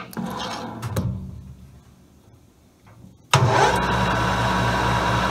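A couple of light metal clinks, then a little over three seconds in a manual metal lathe's spindle motor starts abruptly and runs steadily with a hum, spinning the freshly clamped bar in its three-jaw chuck to check that it runs true.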